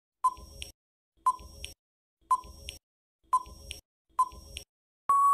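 Quiz countdown timer sound effect: five short beeps about a second apart as the count runs down, then a longer steady beep near the end as the time runs out.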